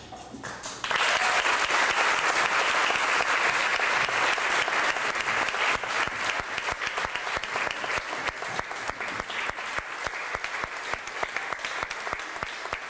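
Audience applause breaks out about a second in, dense at first and thinning to scattered individual claps near the end.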